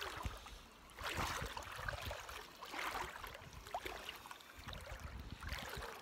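Shallow seawater sloshing and lapping around wading legs, rising and falling in irregular surges, with wind rumbling on the microphone.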